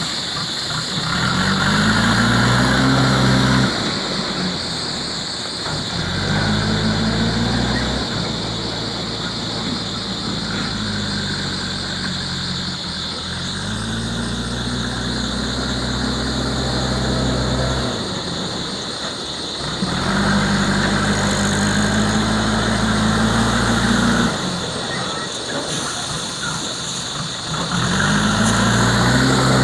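Backhoe loader's diesel engine revving up in about five surges of a few seconds each and dropping back toward idle between them, as it works the hydraulics to dig and load. A steady high whine runs underneath.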